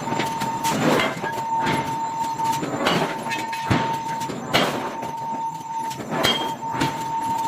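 Forging machinery shaping hot iron blocks: loud metallic clanks about every second or so over a steady, high-pitched whine.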